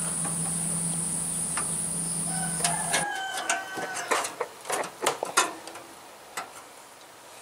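A steady hum cuts off about three seconds in, followed by a series of light clicks and knocks as a PCIe USB 3.0 expansion card is pushed into the motherboard's PCIe x16 slot.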